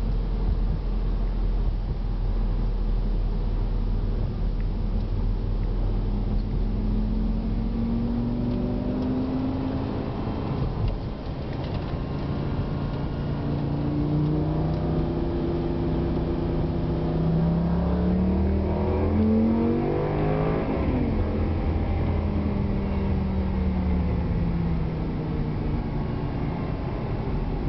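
2004 Lamborghini Gallardo's V10 engine pulling under acceleration. Its pitch rises, drops with a brief dip at a gear change about eleven seconds in, and climbs again. It then falls away as the car eases off, over steady road and wind noise.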